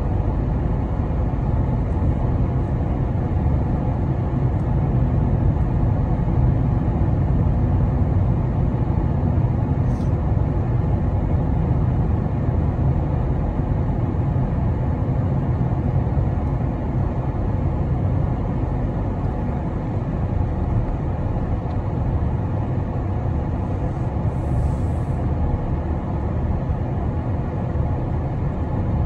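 Steady low rumble of road noise and engine inside a moving car's cabin.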